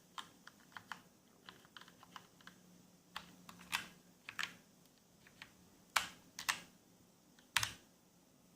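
Typing on a Motospeed CK104 mechanical keyboard with linear red switches: irregular keystroke clicks, with a handful of louder strikes in the middle and near the end.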